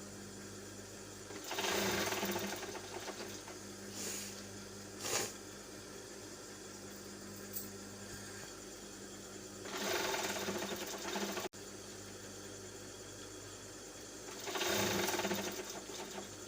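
A person blowing their nose hard, three long blows with two short blows between them. A steady low electrical hum runs underneath.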